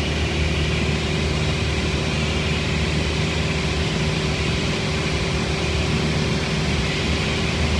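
Beechcraft Bonanza's single piston engine and propeller droning steadily, heard inside the cockpit through the headset audio.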